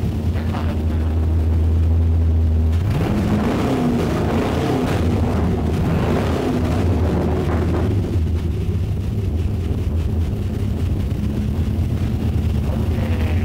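Chevy LS3 V8 running with its turbos not yet hooked up, idling steadily, revved up about three seconds in, then settling back to a steady idle about eight seconds in.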